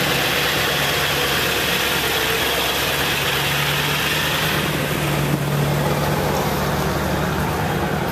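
Pickup truck engines idling and running at low speed as work trucks pull slowly past close by, a steady low hum.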